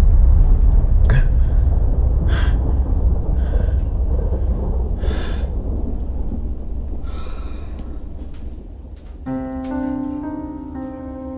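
Heavy, gasping breaths from a distressed young person, about one every one to two seconds, over a loud, deep rumbling drone that slowly fades. About nine seconds in, a held chord of steady musical tones comes in.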